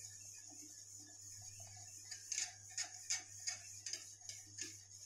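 A wire whisk stirring thickening milk pudding in a steel pan, clicking and scraping against the pan about three times a second from about two seconds in.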